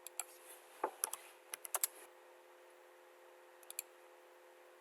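Scattered sharp clicks of a computer mouse and keyboard, in quick clusters during the first two seconds and a pair near the end, over a faint steady hum.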